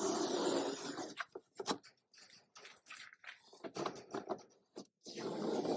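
Tape being peeled off from around a freshly sealed plexiglass window, pulling away from wet silicone. There are two longer peeling stretches, at the start and near the end, with scattered small sticky crackles and clicks between them.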